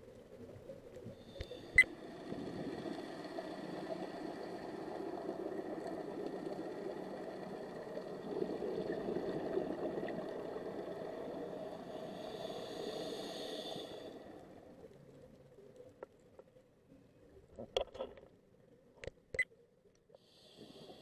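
Boat engine and propeller heard underwater: a steady drone with high whining tones that starts about a second in and fades out about two thirds of the way through. A sharp click near the start and a few more sharp clicks near the end.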